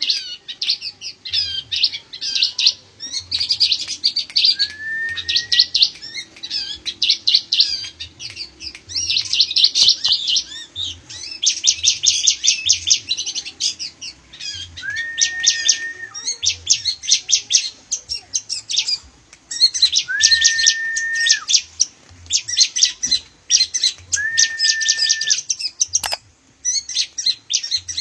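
Caged bar-winged prinia (ciblek) and long-tailed shrike (pentet) singing: bouts of fast, high chirping trills, broken by three held whistled notes of about a second each in the second half. A single sharp click comes near the end.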